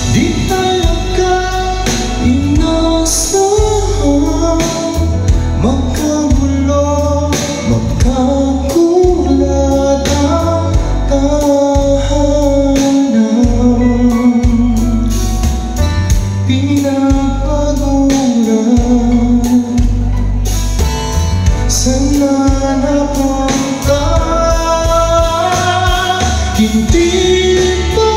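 A man singing karaoke into a wireless microphone over a backing track with heavy bass, both played through a JBL PartyBox Ultimate party speaker.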